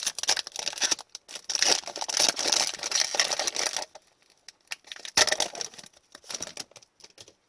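The wrapper of a hockey card pack being torn open and crinkled, with denser rustling for the first few seconds and shorter rustles after.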